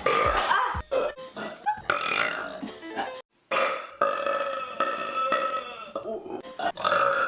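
A run of loud human burps edited back to back, some short and one long drawn-out one in the middle, with abrupt cuts between them.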